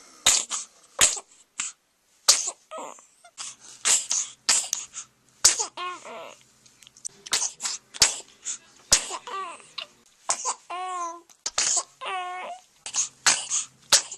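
A baby sneezing over and over: many short, sharp sneezes in quick succession, some followed by brief high-pitched baby squeals or fussing.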